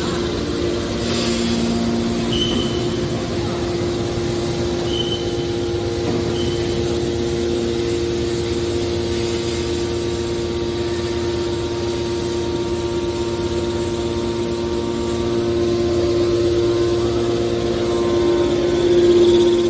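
Hydraulic scrap metal baler running with a steady hum and whine. Three short high-pitched squeaks come between about two and seven seconds in.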